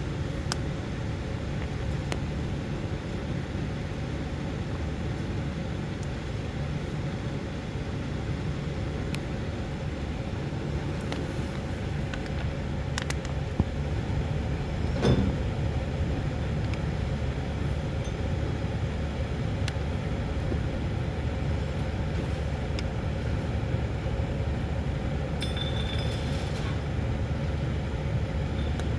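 Steady low rumble of a running vehicle engine, with scattered light clicks and a sharper clink about halfway through.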